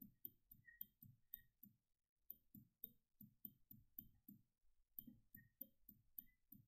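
Near silence with faint, soft repeated taps, about three a second, from a stylus writing on a pen tablet.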